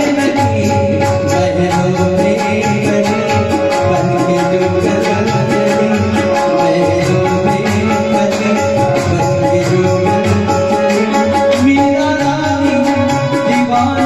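Marathi devotional bhajan music with tabla and a quick, even percussion beat over held melodic tones.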